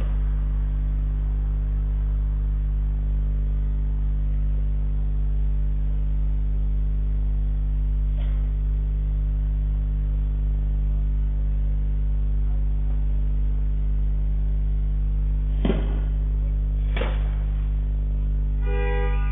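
Steady low electrical hum from a CCTV camera's audio, with two sharp knocks about a second apart near the end. Organ-like music starts just before the end.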